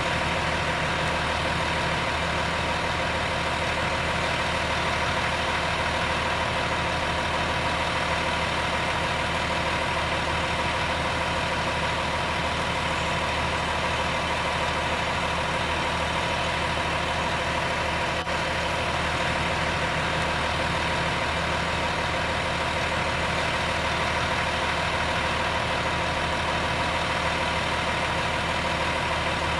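An engine idling steadily, an even, unchanging drone with no revving.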